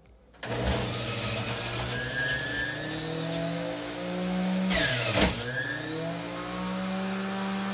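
Electric centrifugal juicer's motor switching on about half a second in and running as apples and grapes are pushed down the feed tube. Its pitch wavers under the load and dips sharply, then recovers, about five seconds in.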